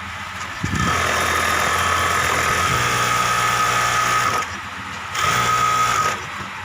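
Direct-drive flatlock industrial sewing machine running at speed in two spells. The first lasts about three and a half seconds and starts just under a second in; after a short pause a second spell lasts about a second. Each carries a steady high whine and stops abruptly.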